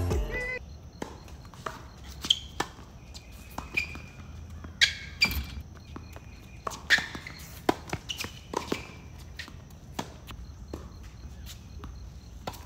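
Doubles tennis play on a hard court: sharp pops of rackets striking the ball at irregular intervals, about one a second, with short high squeaks of tennis shoes on the court.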